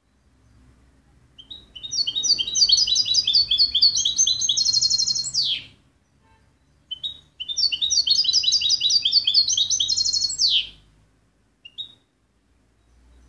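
European goldfinch (jilguero) singing: two long song phrases of rapid, high twittering notes, each ending in a fast trill and a quick falling sweep, with a couple of short single chirps between and after them.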